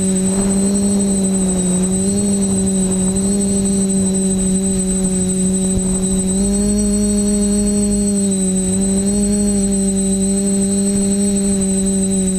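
TBS Discovery quadcopter's electric motors and propellers droning steadily as heard from its onboard GoPro, the pitch stepping slightly up and down a few times with throttle changes, over a thin high whine.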